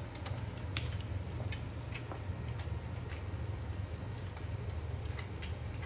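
Tilapia fillets sizzling in a pan, a steady crackle with a few light clicks and taps scattered through it and a low steady hum beneath.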